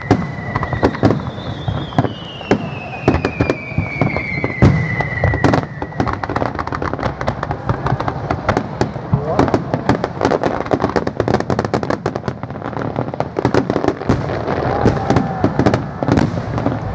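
Aerial fireworks going off in rapid succession: dense crackling with repeated bangs. In the first few seconds a long whistle glides down in pitch.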